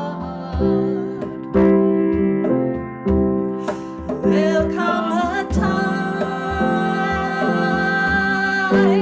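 Live gospel-style song: a woman and a man singing together, ending in a long held note, over steady chords and a hand drum keeping a regular beat.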